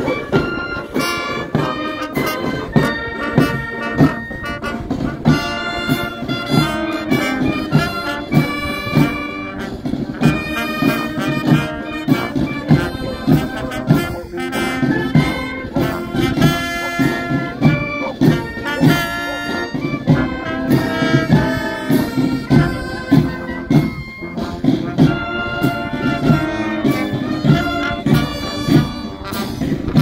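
Brass band music with many held notes over a steady drum beat.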